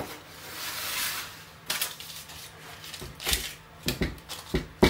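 A soft rustle, then a series of knocks and clatters from a metal oven tray lined with baking paper being handled on a stainless-steel bench. The loudest knock comes near the end.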